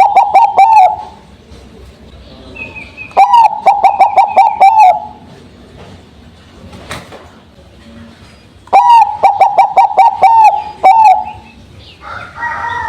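Bangkok perkutut (zebra dove) cooing in bouts of quick, evenly repeated notes, each bout lasting about two seconds, with pauses of a few seconds between them. A fainter mix of other bird calls comes in near the end.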